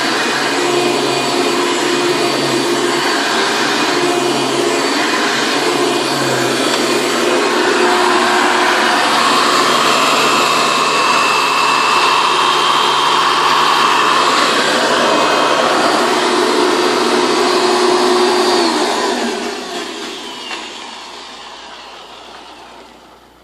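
Hoover Legacy vacuum cleaner running steadily with a whine, getting louder and fuller about a third of the way in, then switched off: its motor winds down and fades over several seconds near the end.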